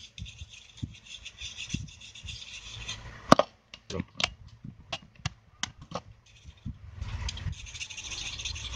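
A brush wet with thinner scrubbing a mobile phone's circuit board and flex cable, a dense scratchy rubbing. About three seconds in it stops for a run of sharp clicks, the first the loudest, as the brush is dabbed on a metal pump-top solvent dispenser, and the scrubbing starts again near the end.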